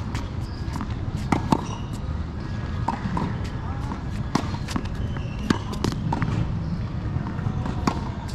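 Tennis balls being struck by rackets and bouncing on a hard court during a practice rally: a string of sharp pops and knocks at irregular intervals, the loudest two close together about a second and a half in.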